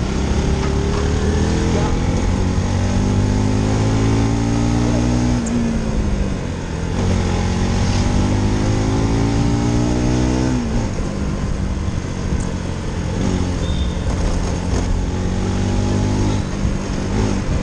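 Motorcycle engine pulling under throttle, its pitch climbing steadily, falling away sharply twice, about five and a half and ten and a half seconds in, then climbing again, with wind rush over the microphone.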